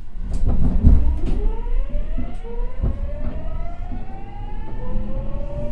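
Nagoya Municipal Subway 3000-series train pulling away from a station: its traction motors and gears whine in several tones that climb steadily in pitch as it accelerates, over a low running rumble. A few clunks sound in the first second and again near the middle.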